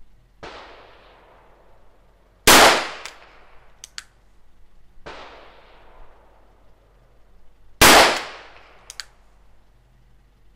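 Nagant M1895 revolver firing 7.62 Nagant PPU factory rounds: two loud shots about five seconds apart, each trailing off in echo, with a short sharp click about a second after each. Two fainter bangs with long echoes come a couple of seconds before each shot.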